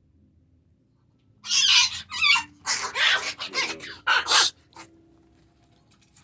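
A Chihuahua and a bobtail cat vocalising as they play rough: a run of short, harsh growls, hisses and yips starting about a second and a half in and lasting some three seconds.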